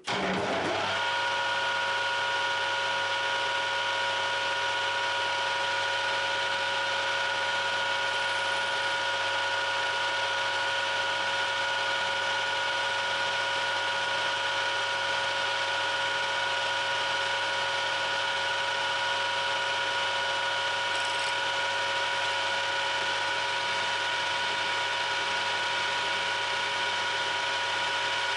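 Metal lathe starting up and then running steadily, a whine with several held tones over an even machine noise, while a turning tool cuts a small carbon-steel bar.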